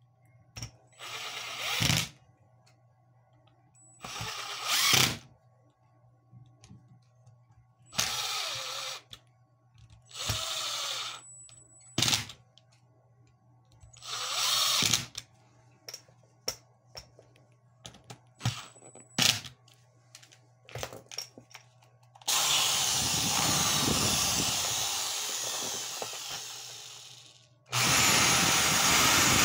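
A Milwaukee M18 cordless driver runs in several short bursts, each about a second long, driving the housing screws of a corded Bosch hammer drill. About 22 seconds in, the reassembled Bosch hammer drill's motor is switched on for a test run: it runs for about five seconds, fades and stops, then starts again near the end.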